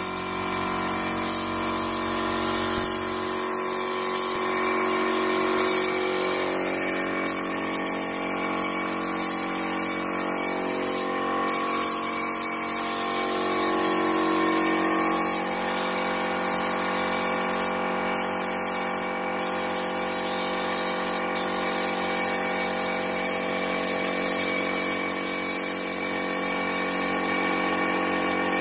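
Gravity-feed air spray gun hissing as paint is sprayed, the hiss breaking off briefly several times as the trigger is let go, over a steady mechanical hum.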